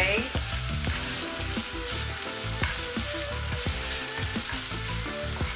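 Chopped onion sautéing in oil in a frying pan: a steady sizzle with a few light clicks.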